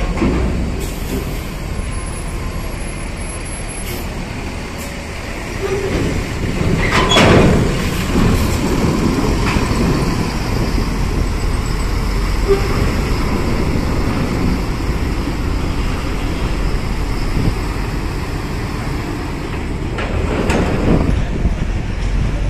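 Large buses running and moving, a steady engine rumble with a louder burst of noise about seven seconds in and another swell near the end.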